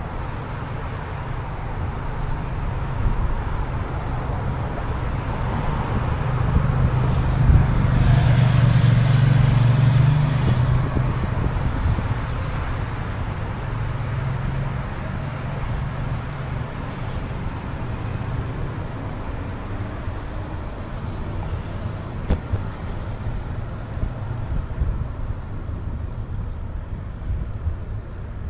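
Road traffic noise: a steady low rumble of cars and tyres, swelling as a vehicle passes close about eight to ten seconds in, then settling back.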